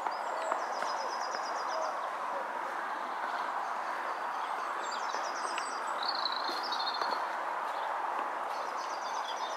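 Footsteps crunching on icy snow, with small birds singing short high trilled phrases three or four times.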